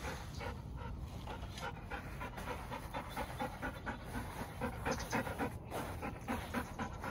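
Golden retriever panting steadily in quick, even breaths, out of breath from chasing balls.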